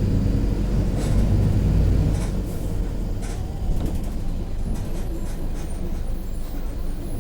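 Cabin sound of a Mercedes-Benz OF-1721 city bus on the move: the diesel engine is louder for about the first two seconds, then eases off, with rattles and knocks from the bus body throughout.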